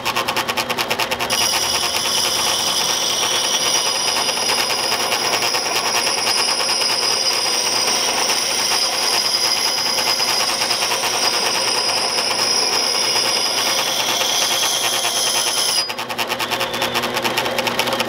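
Old Sedcon garage door opener motor driving a wet grindstone through reduction pulleys and belts, running with a fast, even rattle. From about a second in until near the end, a steel axe head is held against the wet stone, adding a steady high-pitched grinding hiss.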